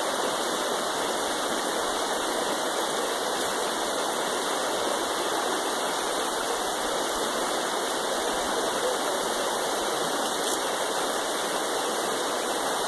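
Shallow, fast-flowing river rushing steadily over rocky riffles.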